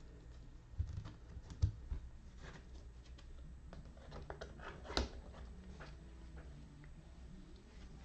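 Quiet handling noise in a small room: two soft low thumps early on, then scattered small clicks, the sharpest about five seconds in.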